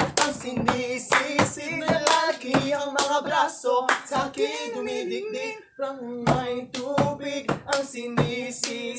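Young male voices singing and rapping a Filipino rap song, with sharp hand claps and slaps keeping a steady beat about twice a second. The sound briefly drops out about five and a half seconds in.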